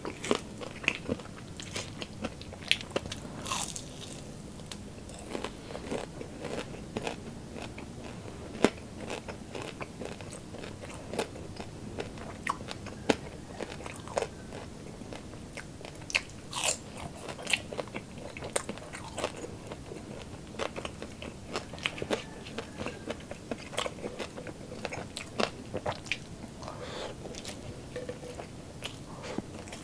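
Close-miked biting and chewing of crispy chicharon bulaklak (deep-fried pork mesentery): many sharp, irregular crunches.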